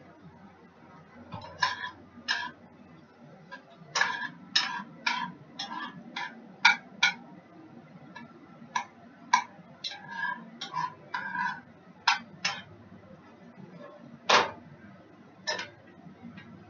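Spoons and dishes clinking and clattering in irregular sharp strikes, some with a short ring, busiest from about four seconds in.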